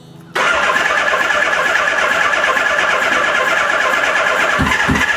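Suzuki GS550 inline-four being cranked on its electric starter with the choke on. The starter's steady whine cuts in suddenly about half a second in, and near the end the engine's compression strokes join as a low, even pulsing at about four to five a second.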